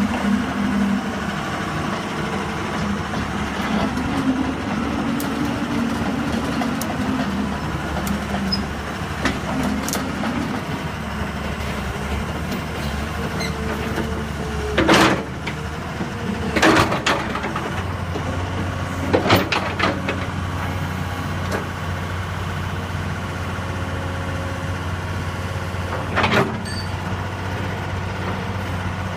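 Komatsu PC200 excavator's diesel engine running steadily, its note shifting about eighteen seconds in, with several sharp clanks in the second half.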